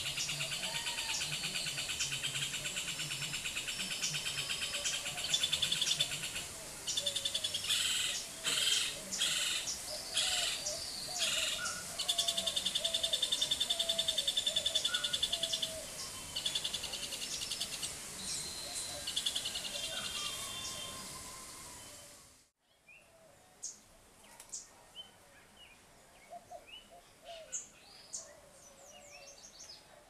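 Hoffmann's woodpecker calling: repeated fast, rolling rattled churrs, some long and held, with other birds calling behind. About two-thirds of the way through the calls fade out, giving way to fainter, scattered bird chirps.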